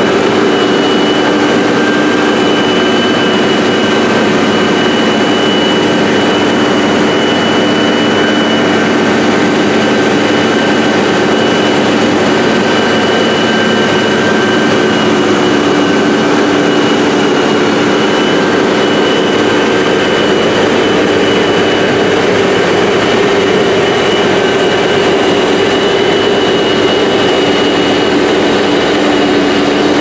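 Krone Big X V12 forage harvester's 750 hp Mercedes V12 engine running under full load while it chops corn and blows the silage into a truck. A loud, steady drone with a high, even whine over it.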